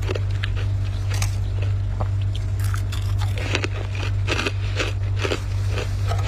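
Dry, flaky freezer frost crunching as it is bitten and chewed: a run of crisp crunches, thickest past the middle, over a steady low hum.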